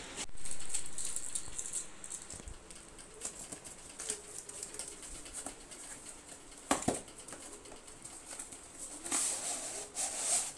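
Scissors cutting through a cardboard shipping box, with cardboard and packaging scraping, tearing and rustling as the box is opened. A sharp snap comes about seven seconds in, and louder rustling near the end as the product box is pulled out.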